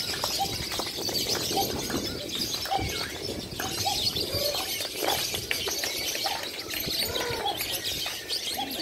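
Many lovebirds singing at once: a dense, continuous high-pitched chirping chatter with short calls overlapping throughout.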